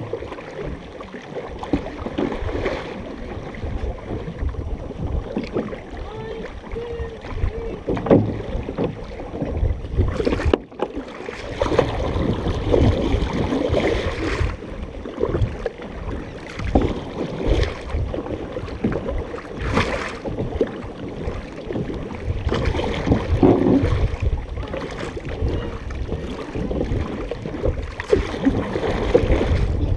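Water rushing and splashing along the hull of a large paddled canoe, surging with the paddle strokes, with wind buffeting the microphone.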